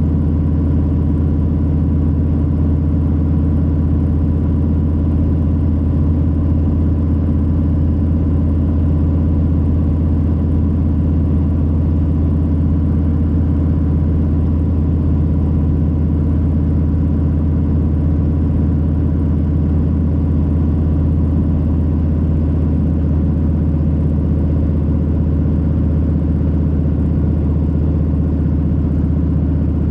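2022 Harley-Davidson Low Rider S's Milwaukee-Eight 117 V-twin running at steady revs on the move, a deep, even low drone with no rise or fall in pitch.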